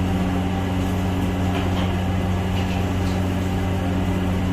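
A steady low machine hum that holds the same pitch throughout.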